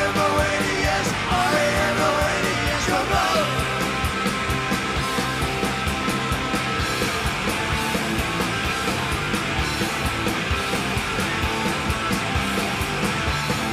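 Background punk rock music with a fast, steady drum beat.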